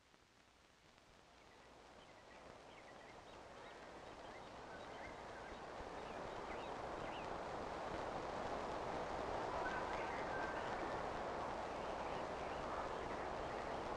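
Outdoor ambience fading in over several seconds: a steady, noisy hiss with scattered small chirps, like birds, above it.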